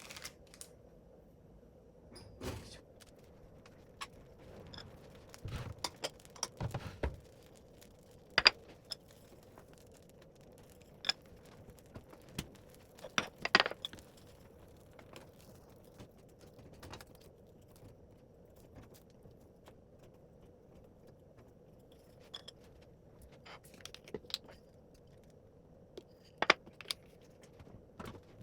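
Kitchen utensils and dishes being handled: scattered sharp clicks and clinks with a few duller knocks, over a faint steady hum.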